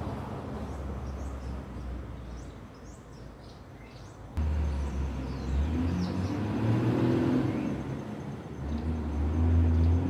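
Low engine hum from a motor vehicle that jumps abruptly louder about four seconds in, with faint, short, high bird chirps over it.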